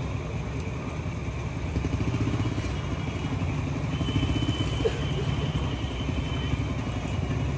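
An engine idling steadily, a low even rumble, with a faint thin high tone about halfway through.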